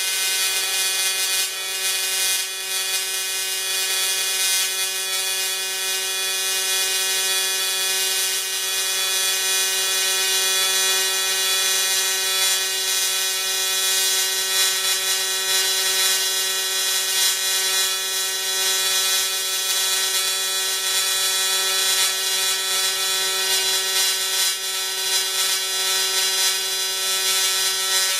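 AC TIG welding arc on thin aluminum diamond plate, run on a triangular wave at about 200 Hz: a steady, harsh electric buzz, 'a mosquito on steroids', that stops abruptly at the end when the arc is broken.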